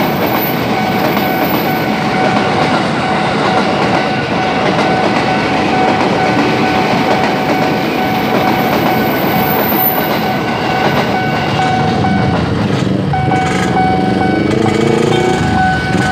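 KRL electric commuter train passing close by at a level crossing, its wheels running over the rails, while the crossing's warning alarm rings steadily. The train noise eases about 12 seconds in, and an engine revs with a rising pitch near the end.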